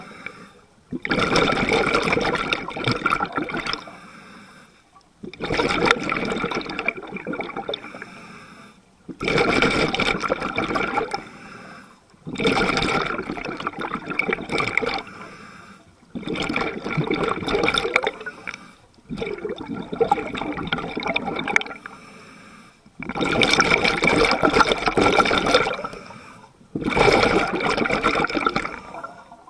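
Scuba regulator breathing underwater: about eight slow breaths, each exhalation a burst of bubbling that starts suddenly and fades away before a brief quiet inhale. The steady, deliberate rhythm is breathing used to control buoyancy.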